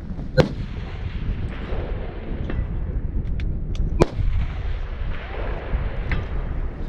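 Two rifle shots from a 6.5 Creedmoor bolt-action precision rifle, about three and a half seconds apart, with a few faint clicks just before the second shot, over steady wind buffeting the microphone.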